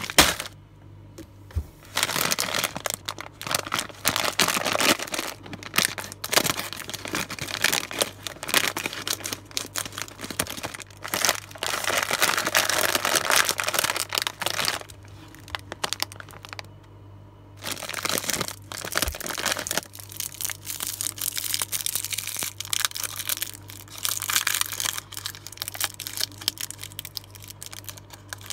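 Plastic bag and foil wrappers of Witor's Il Boero chocolates crinkling and rustling as they are handled, cut open and unwrapped. The sound comes in irregular crackly bursts with a brief pause a little past halfway, over a faint steady low hum.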